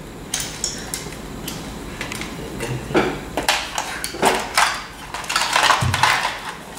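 Hard plastic parts and wire leads of an electricity kit clattering and rattling as they are packed into the kit's plastic box, in irregular clicks that grow busier about halfway through.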